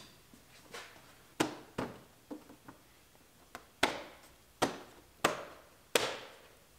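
Plastic trim molding being pressed onto a car's plastic bumper cover, its clips snapping into place: about eight sharp snaps and taps at uneven spacing, most of them in the second half.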